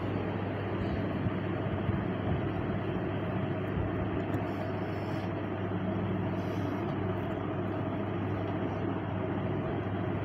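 Steady low rumble and hiss with a constant low hum, unbroken throughout.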